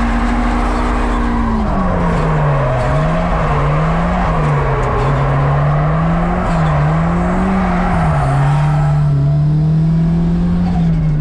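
Drift car's engine heard from inside the cabin, held at high revs at first, then falling and rising again and again as the throttle is worked through a drift, and settling near the end, over a constant rush of tyre and road noise.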